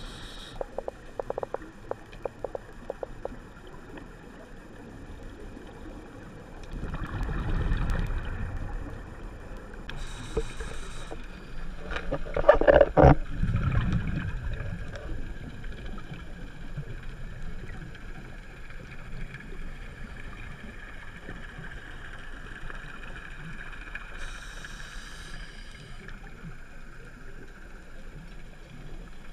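Scuba diver's breathing heard underwater: short hisses from the regulator on the breaths in and rumbling, gurgling bursts of exhaled bubbles, the loudest about halfway through. A quick run of clicks sounds in the first few seconds.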